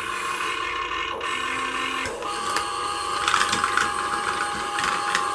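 Small electric motors and gearboxes of a 1/24-scale RC Caterpillar construction vehicle whirring under load, the pitch shifting a couple of times as the machine works.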